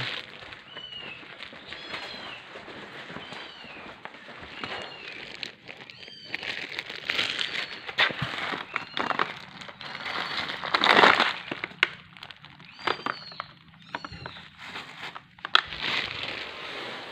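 Very young kittens mewing: short, high-pitched cries repeated about once a second, over rustling and crinkling handling noise, with a louder rustle about eleven seconds in.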